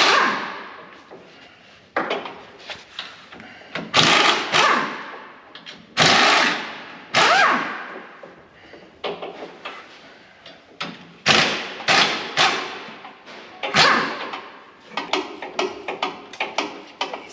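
Hammer blows on the steel of a combine's feederhouse: about a dozen heavy strikes at irregular intervals, each ringing out for a second or so, with a run of lighter taps near the end.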